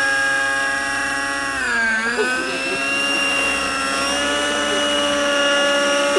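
Glow-fuel (nitro) engines and rotors of RC helicopters, an Align T-Rex 600N and an MS Composit Swift, running at high speed as a steady, high whine. The pitch sags briefly about a second and a half in, then climbs back.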